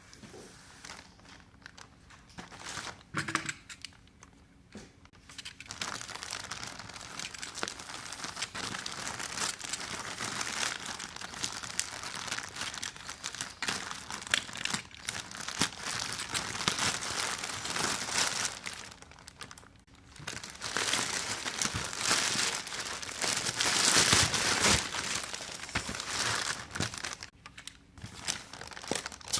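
Plastic packaging crinkling and rustling as a boxed quadcopter is unpacked, with some tearing. It comes in uneven handling bursts with short pauses, loudest a little past the middle.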